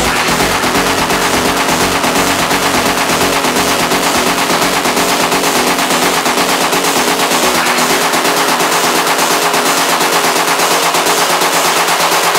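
Electronic techno track in a passage of dense, rapid, machine-gun-like stuttering noise hits, with the bass dropping out about halfway through.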